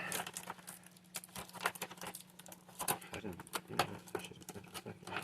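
Plastic packaging of a boxed action figure being handled and opened: a run of irregular crinkles and clicks.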